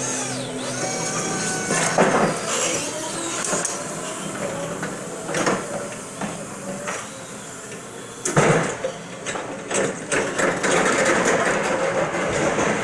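Crown stand-up electric reach truck at work: a steady motor hum for the first two seconds or so, then a series of sharp clanks and knocks, the loudest a little past eight seconds in.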